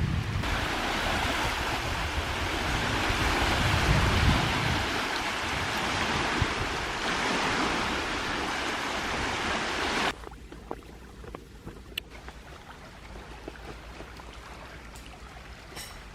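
Wind and lake waves making a steady rushing noise, which cuts off abruptly about ten seconds in to a much quieter outdoor background with a few faint clicks.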